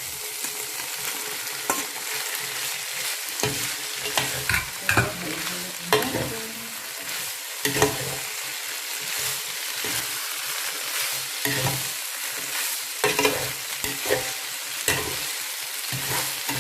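Chow mein noodles frying with a steady sizzle in a pan while being stirred and tossed, a cooking utensil scraping and knocking against the pan at irregular moments.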